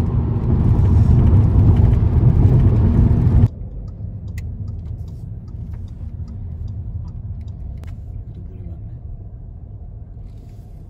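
Car cabin road noise: a loud low rumble of tyres and wind while driving at speed. About three and a half seconds in it cuts abruptly to a quieter steady cabin rumble with faint scattered ticks.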